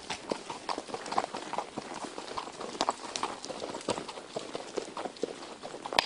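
Hoofbeats of a ridden Icelandic horse, a brisk, uneven run of clops picked up close from the saddle.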